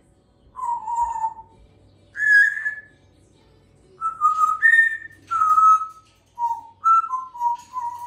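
A parrot whistling a series of about ten clear notes at varying pitches. The first notes are longer and spaced apart, and a quick run of short, lower notes comes near the end.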